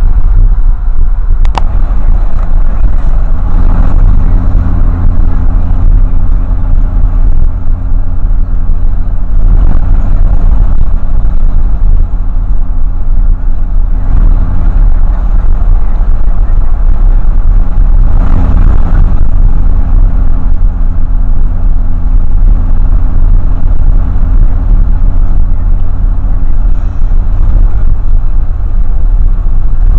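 Loud road and engine noise inside a moving vehicle's cabin: a heavy low rumble under a steady engine drone. The drone drops away a little past halfway and comes back about three seconds later.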